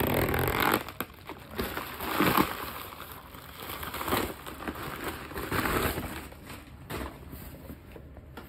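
A FedEx shipping pak being torn open along its tear strip, then its wrapping crinkling and rustling in bursts as a small cardboard box is pulled out. The tearing is loudest in the first second.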